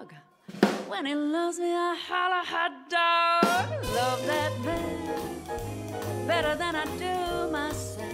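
Big band blues: a vocalist sings over sparse drum accents with the band otherwise silent. About three and a half seconds in, the full band with a walking bass line comes in under the voice.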